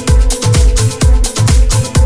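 Electronic dance music: a loud, steady kick drum pounding at an even beat under held synth tones.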